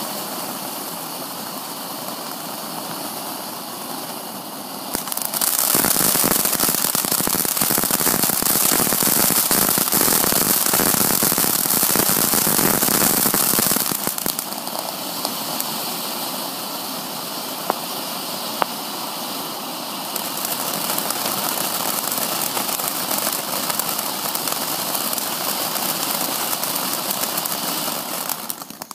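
Cutting Edge 'Bare Knuckle Fighting' ground fountain firework burning with a steady hiss of spraying sparks. From about five seconds in it grows much louder and thick with crackling, eases back about fourteen seconds in, builds again around twenty seconds, and dies away near the end.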